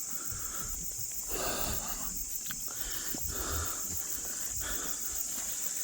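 Steady high-pitched chorus of night insects, crickets among them. Over it, soft heavy breaths come roughly every second from a person walking uphill.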